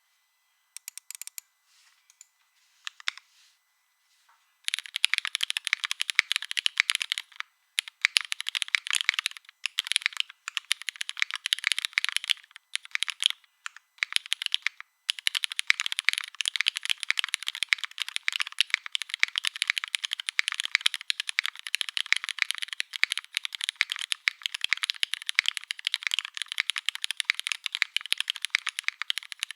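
Typing on a mechanical keyboard with linear Cherry MX Black switches, lubed springs, an aluminium plate and GMK keycaps: a few scattered keystrokes at first, then fast continuous typing from about five seconds in, with a few short pauses.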